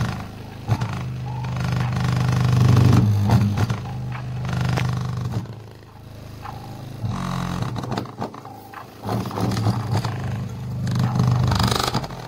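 A Pioneer 70 W subwoofer playing loud, deep bass notes, each held for a second or more with short breaks between them. Scattered clicks and rattles come through over the bass.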